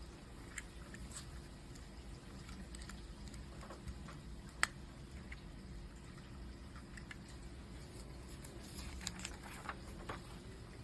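LEGO plastic pieces being handled and pressed together: scattered light clicks and rustles, with one sharp snap about halfway through and a cluster of clicks near the end, over a steady low hum.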